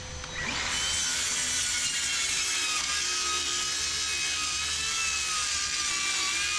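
A power tool starts about half a second in, spins up quickly and then runs steadily with a high whine that wavers slightly in pitch.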